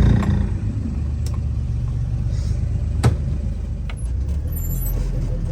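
Vehicle engine running steadily at low speed, a low even hum, with two short sharp clicks, about a second in and about three seconds in.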